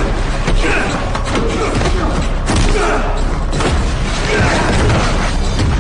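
Film fight sound effects: repeated heavy thuds and slams of blows and bodies hitting during a hand-to-hand brawl, over a music score.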